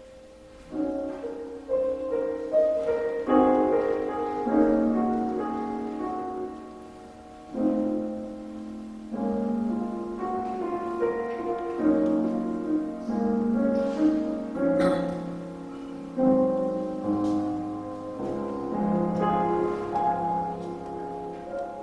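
Piano playing a piece in held chords, the chords changing every second or two.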